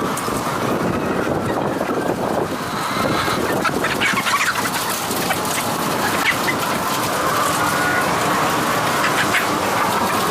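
A large flock of caged laying hens clucking and squawking together: a steady, dense din with many short sharp calls.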